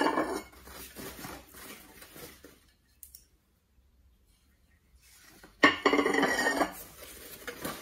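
Porcelain plates being unpacked: plastic wrapping rustling and crinkling, with light clinks of porcelain. The rustling is loudest at the start and again for about a second near the end, with a quiet pause in between.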